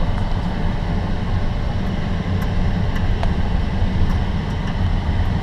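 Steady engine and road rumble heard inside the cabin of a moving vehicle.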